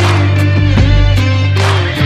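Background music track with guitar over a steady bass and beat.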